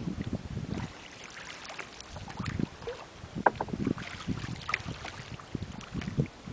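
Wooden paddles dipping and pulling through still lake water from a small rowed boat, with splashes and knocks every second or two. Wind buffets the microphone.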